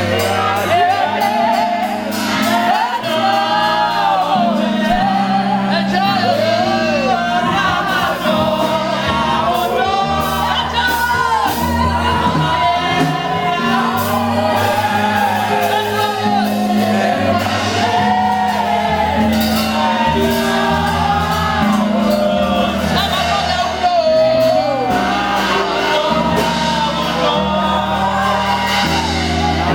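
Live gospel praise music: voices singing together over a band with a steady bass line.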